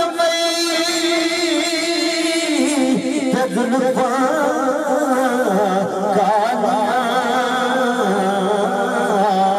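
A naat sung in Punjabi by a male voice through loudspeakers, in long wavering held notes with vibrato.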